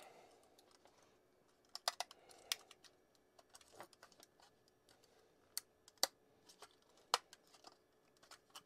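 Irregular sharp clicks and taps of hard 3D-printed plastic parts being handled and pressed against each other.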